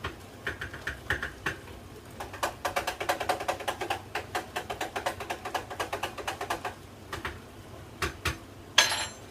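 A spoon stirring in a pitcher, clinking against its sides in a quick run of about six ringing clicks a second, with one louder clink near the end.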